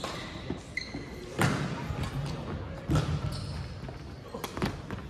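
Badminton rally: racket strikes on the shuttlecock about every one and a half seconds, with sneakers squeaking and feet thudding on the wooden gym floor.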